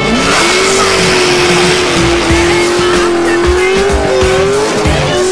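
Nissan 240SX drift car doing a burnout: the engine revs up sharply at the start and then holds at high revs, wavering slightly, over the steady screech of the spinning, smoking rear tyres.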